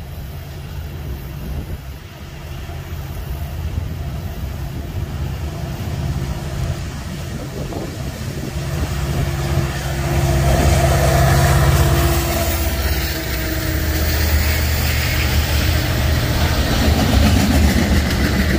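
Union Pacific 1943, an EMD SD70ACe diesel locomotive, approaching and passing. Its engine grows louder and peaks about ten to twelve seconds in, then the wheels of the double-stack container cars rolling by over the rails take over.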